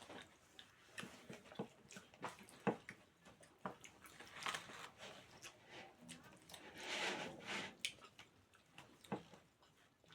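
Close-up eating sounds: chewing and mouth smacks with scattered small clicks, and two longer noisy stretches about four and a half and seven seconds in.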